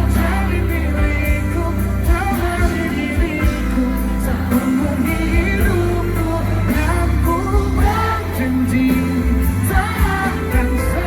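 Live pop band performance: singing over a steady bass and drum beat.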